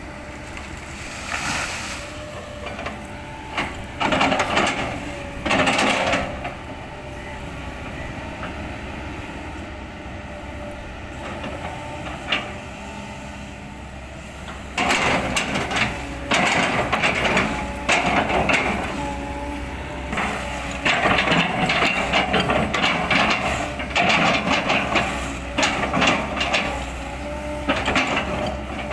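Excavator engine running steadily with a constant whine, broken by loud bursts of crunching and cracking as the bucket chops up oil palm trunks, the longest spells in the second half.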